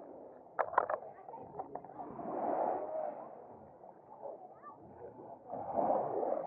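Small waves washing up on a sandy shore, the surge swelling and fading twice, with a few short sharp sounds, like splashes, about a second in.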